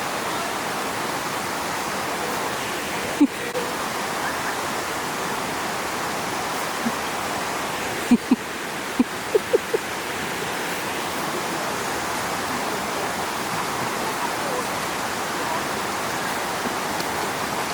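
Steady rushing of running water, like a stream or small waterfall, with a few brief sharp sounds, most of them clustered about eight to ten seconds in.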